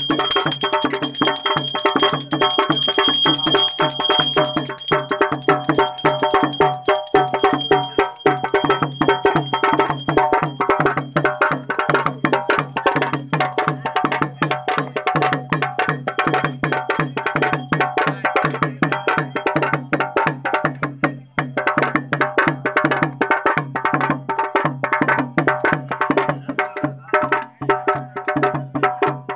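Fast, steady drumming with a bell ringing over it; the bell fades out about ten seconds in and the drumming carries on.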